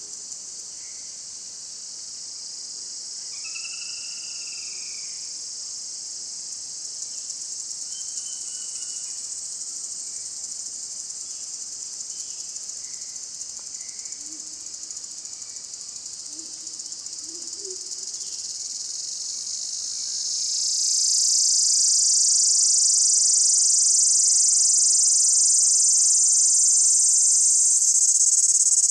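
A continuous, high-pitched insect chorus, growing much louder about two-thirds of the way through. A faint bird call sounds once early on.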